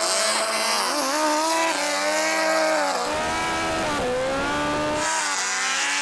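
Racing motorcycle engines revving at a drag-race start line: a Red Bull KTM MotoGP bike and a supercharged Suzuki Hayabusa. Their engine notes blip up and down repeatedly, over the rush of the supercharged bike's wheelspinning rear tyre.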